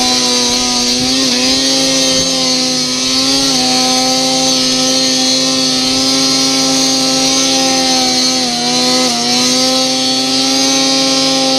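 Snowmobile engine held at high revs while climbing a snow slope, over a steady hiss. The revs dip briefly and recover about a second in, again after about three seconds, and twice close together near the end.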